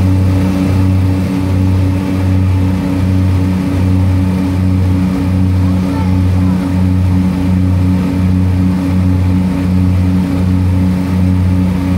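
Seaplane's propeller engines running steadily on the landing approach, heard from inside the cabin: a loud, low drone that pulses gently at an even rate of about three beats every two seconds.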